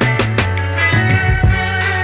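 Background instrumental music: a rock track with guitar, bass and a steady drum beat.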